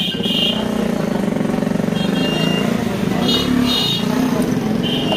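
Street traffic: a motor vehicle engine running close by, with short high-pitched ringing signals sounding several times over it.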